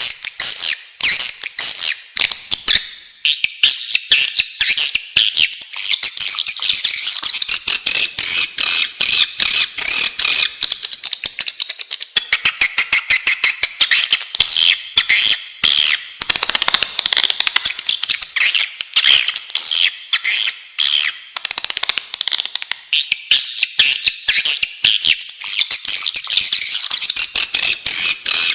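Swiftlets twittering: a dense, continuous chatter of rapid clicking chirps. It is a swiftlet lure call, the sound used to draw swiftlets in.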